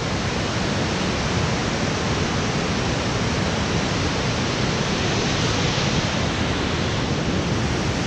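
Large waterfall rushing: a steady, even wash of falling water with no breaks.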